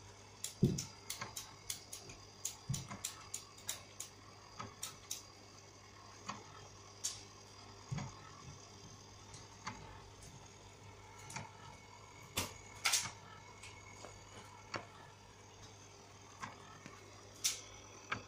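Stuart Scientific SRT1 roller mixer running, apparently in working order: a low steady motor hum with irregularly spaced light clicks and ticks.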